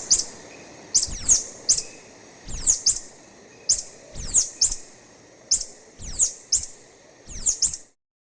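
Tarsier calling: a series of very high-pitched whistles, each sliding steeply downward, given in twos or threes about every second and a quarter. The calls stop shortly before the end.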